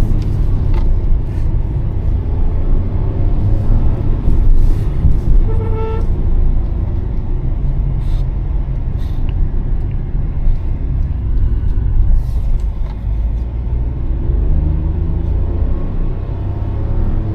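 Hyundai i20 N Line's 1.0-litre turbo three-cylinder engine and tyres running while driving, a steady low rumble. A short higher tone is heard about six seconds in.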